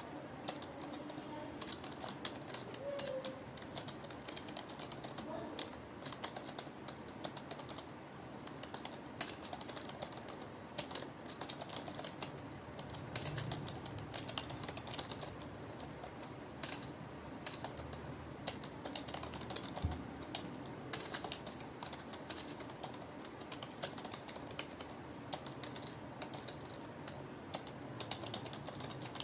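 Continuous typing on a computer keyboard, keys clicking in a quick, uneven patter during a timed Hindi typing test.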